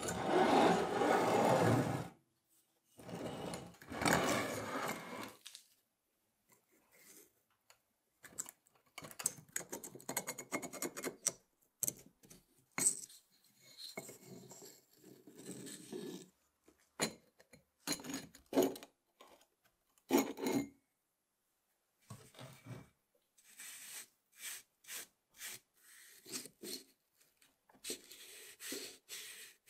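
Rubbing, rasping and scraping on wood, mixed with short knocks and clinks, from hand work on an old wooden hand plane. The sounds come in separate bursts; two long, loud scrapes in the first five seconds are followed by many shorter rubs and taps.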